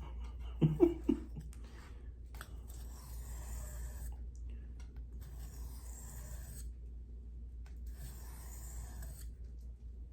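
Knife blade drawn across a sharpening stone in three long scraping strokes, each about a second and a half, with short pauses between them.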